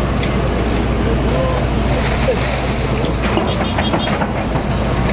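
Hitachi hydraulic excavator's diesel engine running steadily under load as the bucket digs and lifts a load of refuse, with a few short clatters in the second half.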